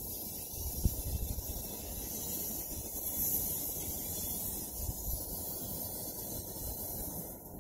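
Steady outdoor hiss with a single sharp knock about a second in.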